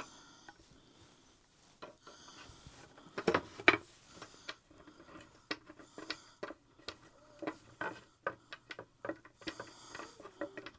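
Crib bolt being turned in by hand: irregular small clicks and taps of metal hardware against the wooden crib parts, with a couple of louder knocks about three seconds in.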